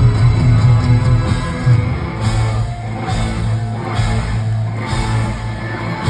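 Live rock played loudly through a large PA at a sound check: distorted electric guitar over a sustained low bass.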